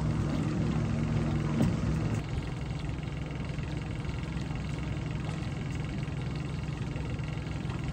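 Boat engine running steadily at slow idle, a low even hum; about two seconds in it gets a little quieter and some of its higher tones drop away, then runs on steady.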